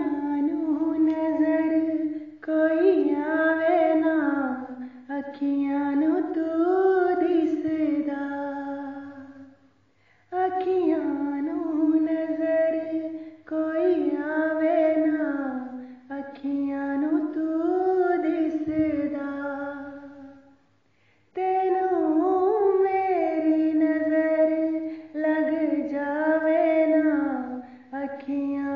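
A woman singing a Punjabi song unaccompanied, in long drawn-out phrases with many turns and slides in pitch. She pauses briefly for breath about ten seconds in and again around twenty seconds in.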